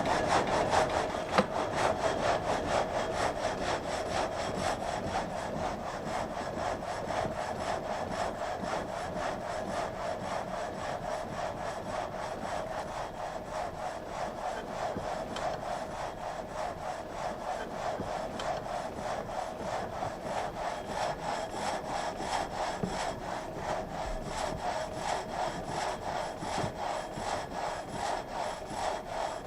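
Water-powered vertical frame saw cutting through a log, its blade rasping up and down in a steady, even rhythm of strokes as the carriage feeds the log forward.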